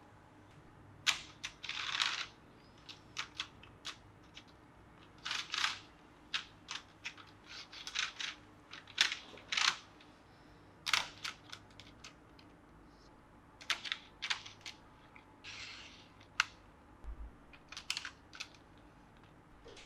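Hands handling a model train set and its packaging: irregular clicks and taps with a few short rustles.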